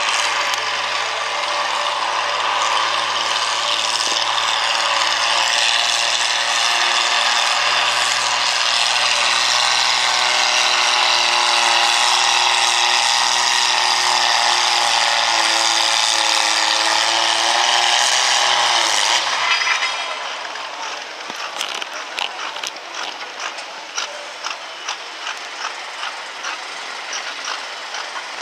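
Farmall tractor engine running hard at high throttle under the load of a pulling sled. About two-thirds of the way in it drops suddenly to a much quieter, clattering idle with rapid clicking.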